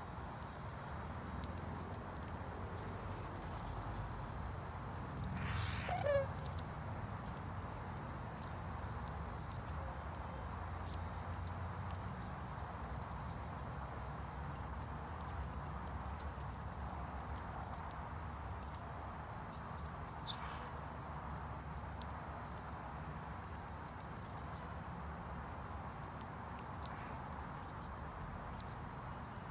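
Crickets chirping in short, irregular clusters of high-pitched pulses over a steady high insect trill.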